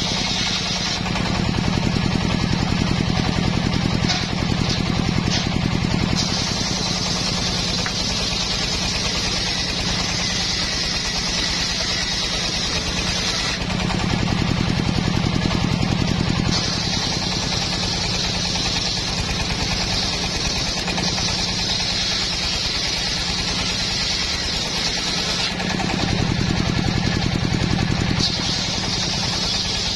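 Large homemade circular saw bench ripping teak boards lengthwise: a steady low machine hum with a higher ripping sound from the blade in the wood. The ripping drops away twice for a few seconds, and the hum grows a little louder then, as one board clears the blade and the next is fed in.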